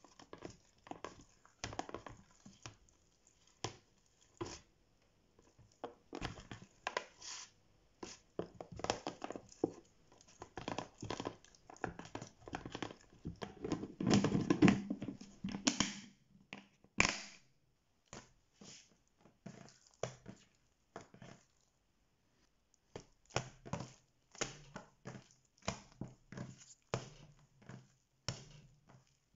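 Hands working sticky dough inside a plastic tub and a clip-lock plastic lid being pressed on, with sharp clicks as it shuts. After a pause comes a string of short slaps as the dough is slapped and folded on a steel worktop.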